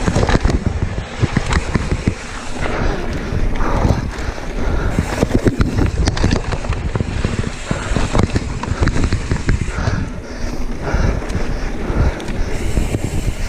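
Mountain bike riding fast down a dirt trail: tyres rolling over packed dirt and the bike rattling and knocking over bumps, with wind buffeting the microphone.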